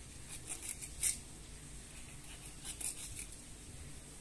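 Kitchen knife scoring slits into a raw mackerel: a few short, light scraping cuts, one group around the first second and another near three seconds in.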